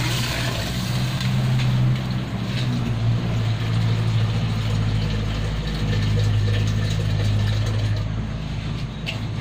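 A motor running steadily: a loud low hum that shifts slightly in pitch a few times.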